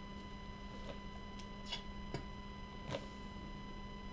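A few faint, sharp clicks over a steady electrical hum, the clearest click about three seconds in.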